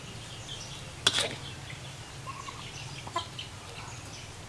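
Chickens clucking in short scattered calls, with one short, sharp, loud sound about a second in, over a steady low background hum.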